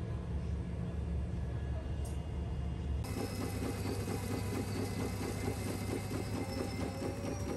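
Self-serve café coffee machine making an iced café latte: a steady low hum, then about three seconds in the dispenser starts with a fast, rhythmic pulsing as milk pours over the ice in the cup.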